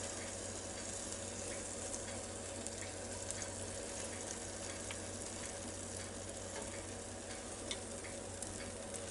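Hot pork tenderloin sizzling quietly in the open, just-cooked Ninja Foodi pot as barbecue sauce is brushed on: a steady, even hiss with a few light ticks.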